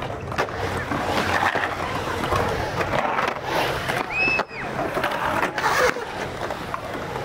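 Skateboard rolling on a hard surface: a steady rolling noise from the wheels with scattered clicks and knocks, and one short high squeak a little past halfway.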